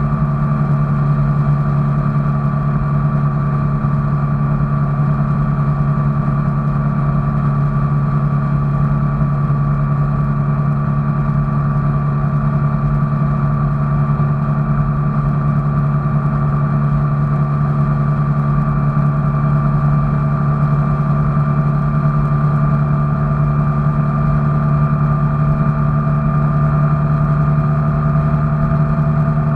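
A vehicle's engine drone while it is moving: a constant low hum with faint steady whines above it that drift slowly in pitch.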